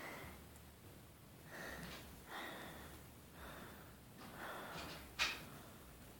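Faint breaths and sniffs close to the microphone, with one sharp click about five seconds in.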